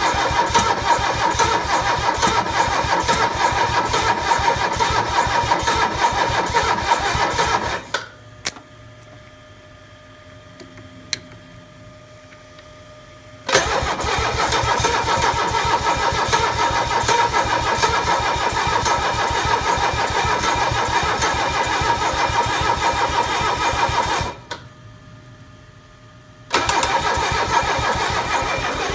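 Mercedes OM617 five-cylinder diesel engine being cranked by its starter motor without catching, in three long bouts of even, rapid churning with a steady starter whine, stopping twice for a few seconds in between. It is a no-start, even with newly installed glow plugs.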